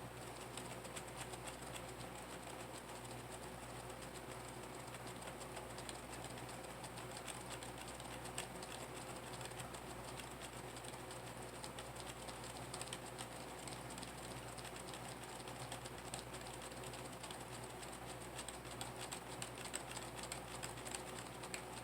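A computer keyboard key tapped over and over, pressing F12 repeatedly to try to get into the BIOS while the PC boots, over a faint steady hum.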